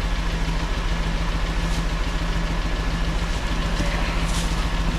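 Buggy engine idling steadily with a constant low hum.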